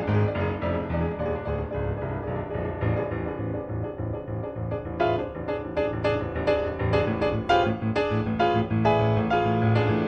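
Piano music accompanying a silent film. The notes grow more sharply struck and busier about halfway through.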